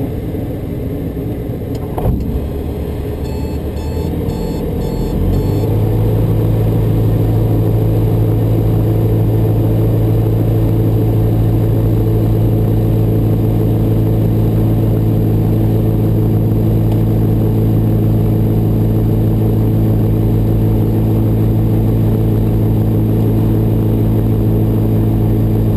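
Light aircraft engine restarted in flight on the first try. Airflow noise and a click come first, then the engine catches about five seconds in. It settles into a steady run held at about 3000 rpm to warm up.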